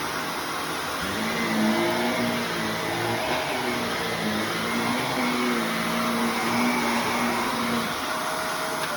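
Shark Navigator upright vacuum cleaner running steadily, its motor giving a loud, even whine over airflow noise. A second, lower hum joins about a second in and stops near the end.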